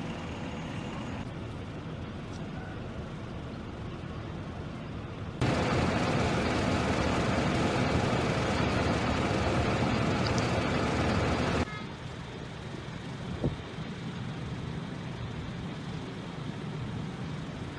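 Roadside traffic noise: vehicle engines running on the highway, heard across several short clips, with a louder stretch of steady noise lasting about six seconds in the middle and a single short knock near the end.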